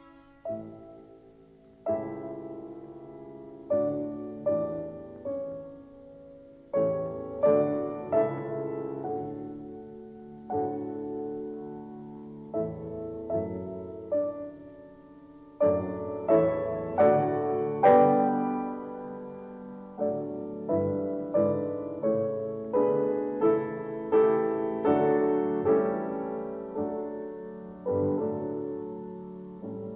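Background music: solo piano, with single notes and chords struck about once a second and left to ring out.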